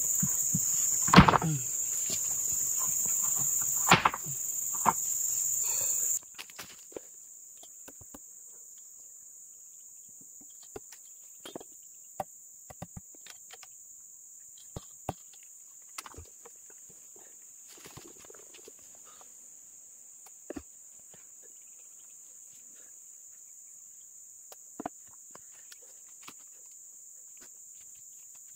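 Steady high-pitched chirring of insects, with scattered faint clicks and knocks. For the first six seconds it is louder, with a rushing noise and a few sharper knocks; then the level drops suddenly, leaving the insects and occasional clicks.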